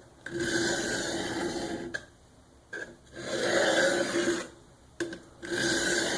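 A VG-1 steel knife blade stroked along a Work Sharp Guided Sharpening System hone with light pressure: three long scraping strokes, each about a second and a half, with short pauses between. This is the stage that straightens the edge and removes the burr.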